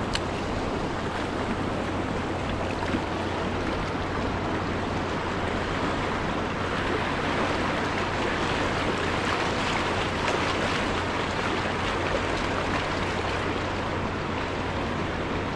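Fast-flowing river water rushing steadily, the Hiwassee running high on a dam release with the generators on.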